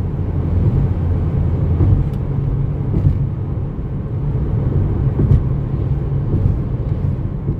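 Loud steady road and engine rumble inside a moving Toyota's cabin as it drives over a bridge deck.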